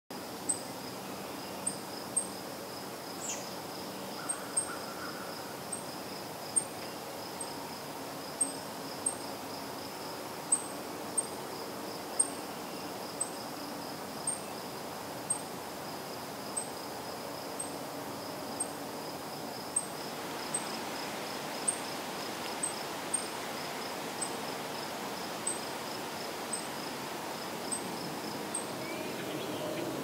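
Outdoor spring ambience: a steady high-pitched insect-like trill with sharp, high ticks about once a second. A brief falling whistle comes about three seconds in, over a soft background hush.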